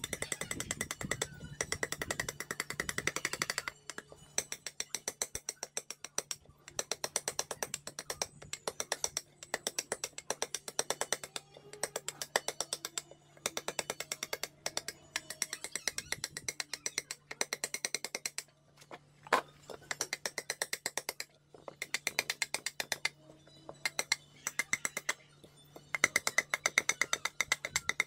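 A large steel chopping knife hacking and shaving at a wooden bowl blank in runs of quick, sharp knocks, pausing every second or two between runs. A faint steady hum runs underneath.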